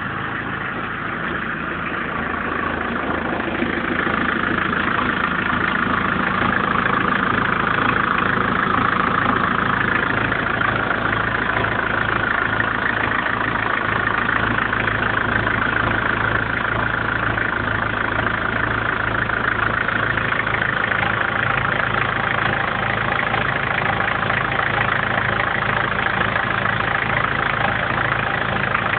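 BMW 318 tds's 1.7-litre four-cylinder turbodiesel engine idling steadily, a little louder after the first few seconds.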